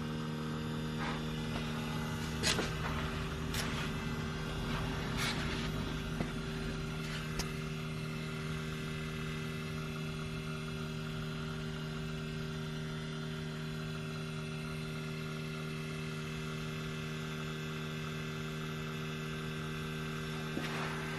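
Steady electric hum with several even tones coming from the rear of a 2016 Lexus RC F, with a few short clicks in the first several seconds. The owner suspects some automatic self-adjustment, like the fuel evaporative system self-cycling that a service centre told him caused a similar sound on a Lexus RC 350.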